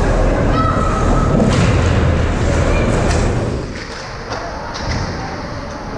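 Ice hockey play: knocks and thuds of sticks, puck and players against the ice and boards over a low rumble. The rumble drops off about three and a half seconds in.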